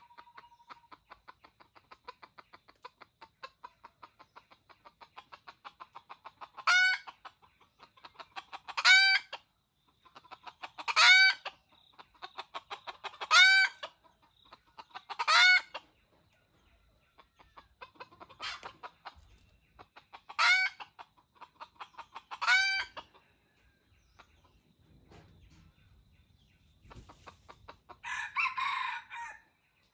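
Red junglefowl rooster calling: a run of short, loud clucking calls about two seconds apart, then a harsher, longer call near the end. A fast, steady insect ticking runs underneath.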